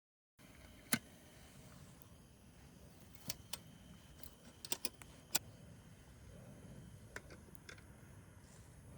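Scattered sharp clicks and light clinks of cooking gear being handled, about nine over several seconds, over a low steady hum.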